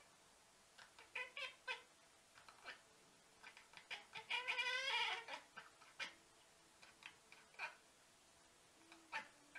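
A cat making a string of short, high calls, with one longer call of wavering pitch about four seconds in, the loudest of them.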